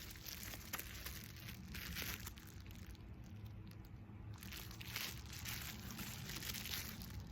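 Faint crinkling and rustling of plastic bubble-wrap packaging being handled, with a few small clicks.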